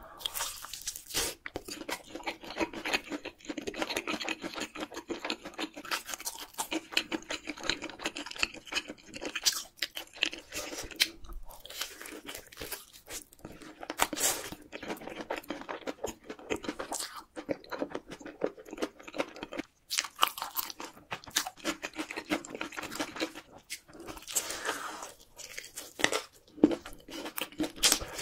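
Close-miked crunching and chewing of crispy fried chicken in red sauce: dense crisp crackles from bites into the fried crust, with steady chewing between them.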